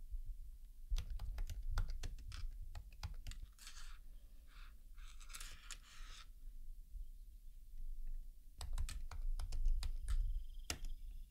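Typing on a MacBook laptop keyboard: a quick run of key clicks starting about a second in, then a second run near the end. Between them there is a softer scratchy rustle.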